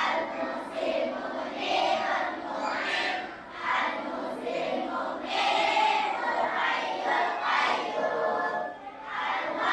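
A group of primary school children voicing the same words together in unison, in a sing-song chant that pulses in short phrases about once a second.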